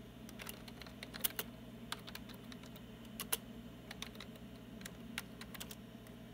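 Keys of a PC keyboard being typed, a string of irregular clicks as a DOS command is entered, over a steady low hum.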